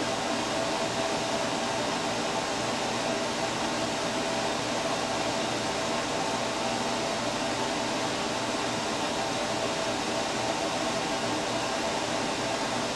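Steady whir of a running fan, with a few faint steady tones in it.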